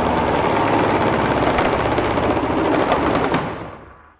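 Small gas engine running hard on a homemade hydraulic dyno, driving its hydraulic pump with a fast, steady rattle and a faint whine. The sound fades away over the last second.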